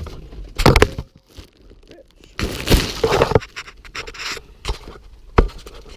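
Hand tools clanking and scraping on the steering column while the steering-wheel nut is being worked loose, with sharp metal knocks near the start and end and a heavy, strained breath in the middle.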